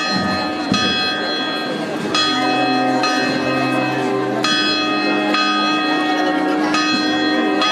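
Church bells ringing, struck about four times at intervals of roughly one and a half to two seconds, each strike ringing on over the last.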